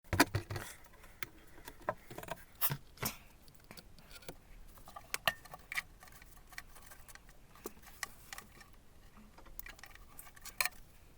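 Irregular clicks and light taps of handling noise, scattered unevenly, with the loudest just after the start and another near the end.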